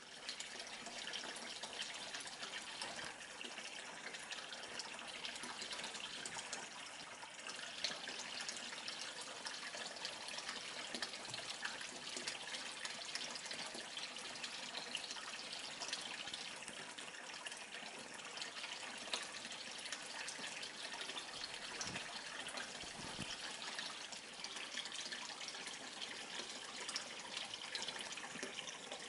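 A stream of water pouring from an outlet into a turtle pond, a steady splashing with no change.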